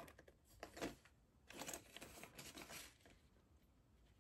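Faint rustling of a paper banknote being slid into a clear plastic binder envelope, with soft crinkling of the plastic: a short rustle about a second in, then a longer stretch of rustling in the middle.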